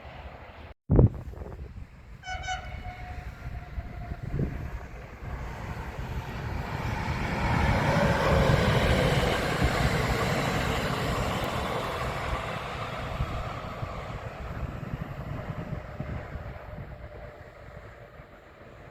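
A sharp click about a second in, then a train horn sounds one short note, followed by a train passing: its rumble swells to a peak about halfway through and slowly fades away.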